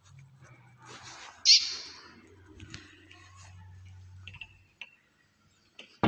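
A small bird gives one sharp, high call about a second and a half in, then a few fainter short calls, over soft rustling from handling.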